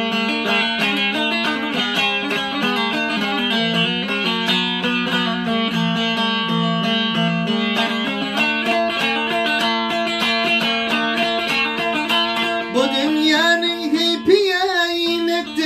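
Turkmen dutar played in a fast, dense run of plucked and strummed notes. A man's singing voice comes in over it near the end.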